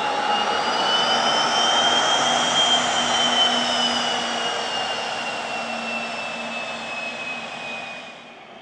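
Dornier 328JET's twin Pratt & Whitney PW306B turbofans whining at taxi power as the jet passes close by. The whine rises slightly in pitch and then falls away as the aircraft goes past. The level drops sharply near the end.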